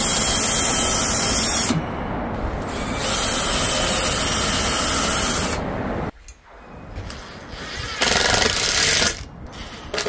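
Cordless drill boring into a wooden 4x4 post, running in several loud spells of one to three seconds with short drops between them.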